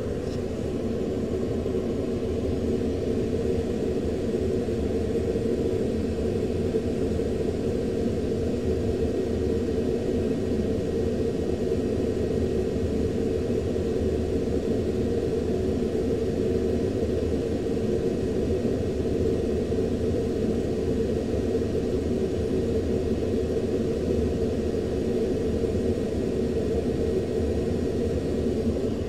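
Steady, unchanging rumble of cockpit noise inside a U-2 in high-altitude flight: the jet's engine and airflow heard through the canopy.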